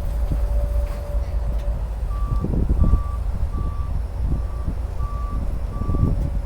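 Vehicle backup alarm beeping six times, about one beep every 0.7 seconds, starting about two seconds in, over a steady low rumble.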